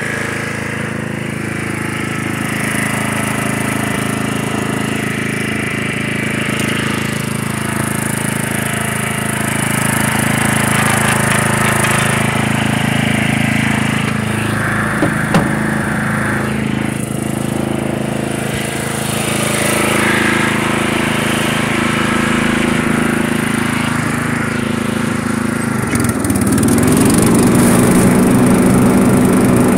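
Murray lawn mower engine running steadily while it picks up and bags leaves, with a dry crackle over the engine. About 26 seconds in, the engine speeds up and gets louder.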